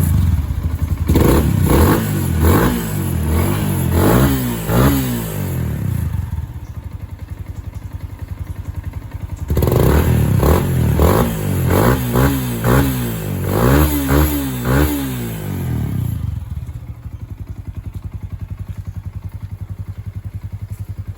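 Yamaha Sniper 150 FI's single-cylinder four-stroke engine through a kalkal (gutted, open) exhaust pipe, revved in two runs of quick throttle blips with idling between them. It settles back to a steady idle for the last few seconds.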